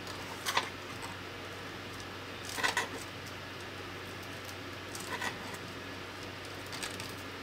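Braided expandable cable sleeving being bunched and pushed along over ribbon cables by hand: four brief scratchy rustles spread through, over a low steady hum.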